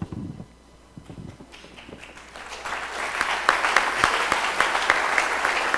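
Audience applauding in a hall. The clapping builds up from about two seconds in and then holds steady and dense.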